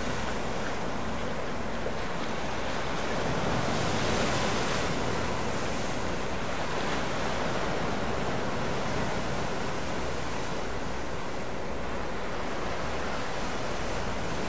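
Steady rush of lake waves, with wind buffeting the microphone; the noise swells briefly about four seconds in.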